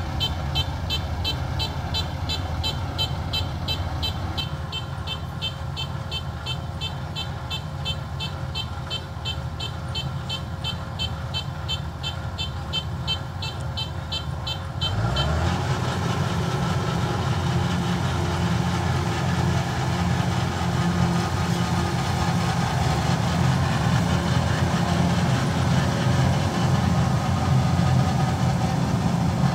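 Kubota rice combine harvester engine running as it pushes through deep paddy mud, with a fast repeating electronic warning beep, about two or three a second, through the first half. About halfway the beeping stops and the engine rises in pitch and runs louder and heavier.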